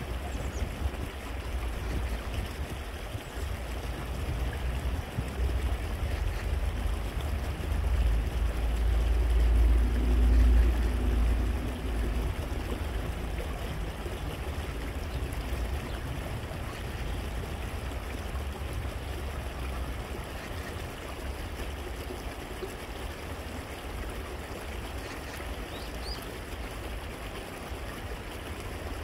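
Shallow stream running over stones, a steady trickling rush of water. A low rumble swells and is loudest about eight to twelve seconds in.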